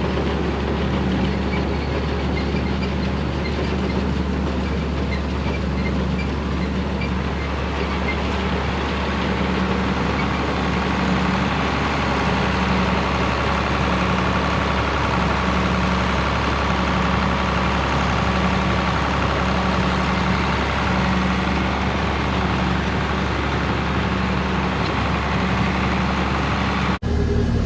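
Farm tractor running steadily while working hay machinery, with a regular pulse a little more than once a second over the engine's rumble. The sound changes abruptly just before the end.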